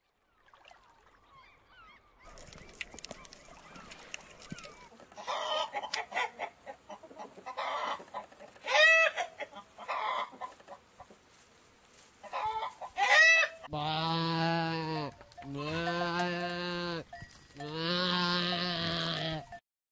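Faint scratchy clicking, then chickens clucking and giving short squawks, then a goat bleating three times in long, drawn-out calls.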